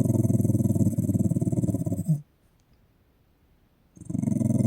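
A dog growling while playing tug of war over a sock: one long growl that stops about two seconds in, and a second starting near the end.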